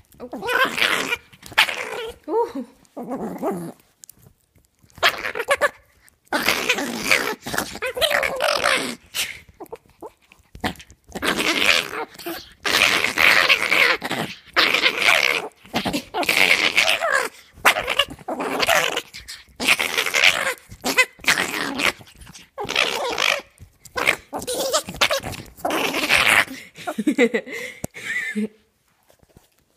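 A small dog growling in repeated bouts, some short and some drawn out, as a hand reaches for the chew stick it is gnawing: protective guarding of its chew. The growling stops about a second before the end.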